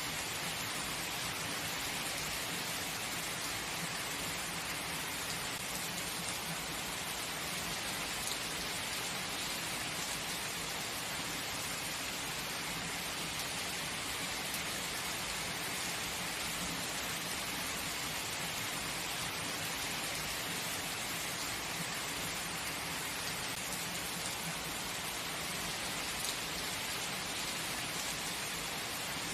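Heavy rain falling steadily, an even hiss that stays at the same level throughout.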